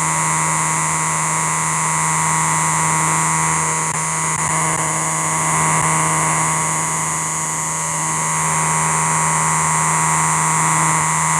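Call of a small night-calling creature, recorded near fields at dusk: one steady, unbroken drone that holds the same pitch throughout, with a high hiss-like edge and only slight swells in loudness.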